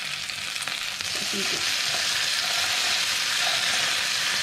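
Boneless chicken thigh and potato cubes sizzling steadily in oil on a double-sided grill pan as the chicken is turned over with tongs.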